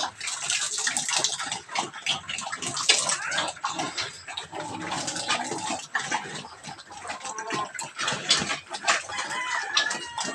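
Chickens clucking and a rooster crowing, over a pregnant sow eating water-soaked feed from a concrete trough with many short wet clicks.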